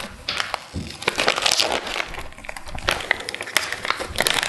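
Crinkling and crackling of a thin clear plastic wrapper being handled and opened to take out a new external condom catheter.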